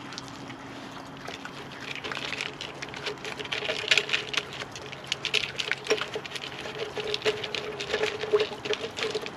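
Raccoon pawing at a plastic cat ball-track toy: a quick, uneven run of plastic clicks and taps that starts about two seconds in, with a steady whirr from about three seconds on, typical of the ball rolling round its track.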